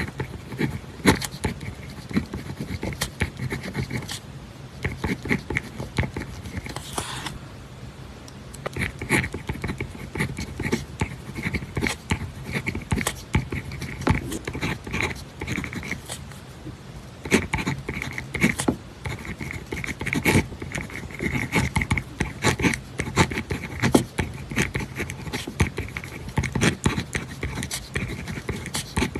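Pen writing on paper: quick runs of scratching strokes and small taps, with a brief rustle about seven seconds in.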